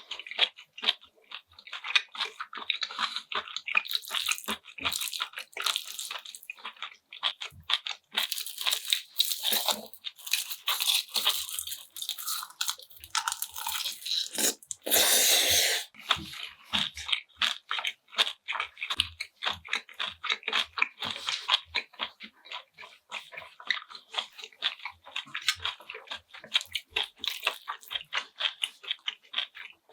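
Close-miked eating sounds: a person chewing food with steady crunching and wet clicking, as in an ASMR mukbang. About halfway through there is a louder rushing sound lasting about a second.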